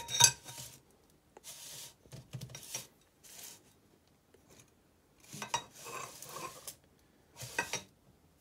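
New cylinder liners and pistons for a Fiat 126 engine being handled and set down on a cardboard-covered bench: a ringing metal clink at the start, then several short scraping, sliding sounds as the parts are moved.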